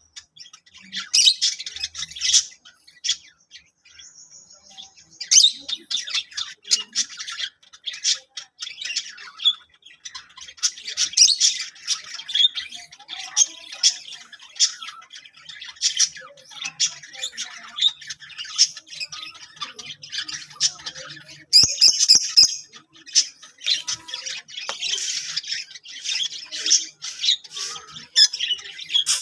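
Lovebirds chattering with shrill squawks: many short, high-pitched calls in quick succession, with a louder burst about two-thirds of the way in.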